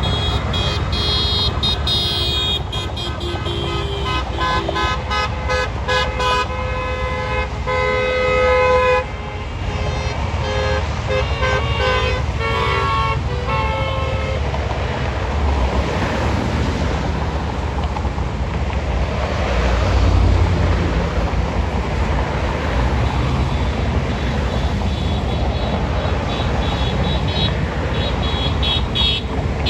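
Several car horns honking in protest, short beeps and longer blasts at different pitches overlapping, the longest and loudest blast just before halfway. The honking stops about halfway, leaving passing traffic noise with one louder car going by, and the horns start up again near the end.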